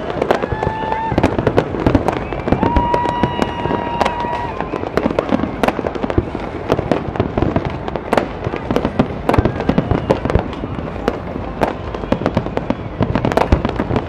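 New Year fireworks display going off continuously: a dense, irregular run of bangs and crackles from shells bursting. Twice in the first few seconds a steady whistle-like tone sounds over the bangs.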